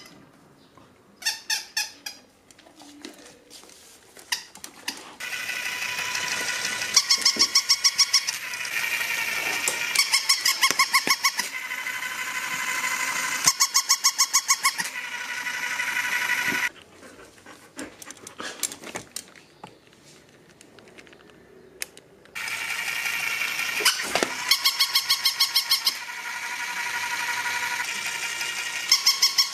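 A battery-powered walking toy puppy: its small motor whirs steadily as it walks, and every few seconds it gives a loud burst of rapid electronic yapping barks. It goes quiet for several seconds midway, then starts walking and barking again.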